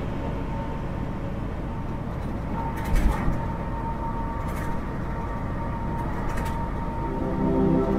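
Steady low rumble of a semi truck running down the highway, heard from inside the cab, with one thump about three seconds in. Music comes back in near the end.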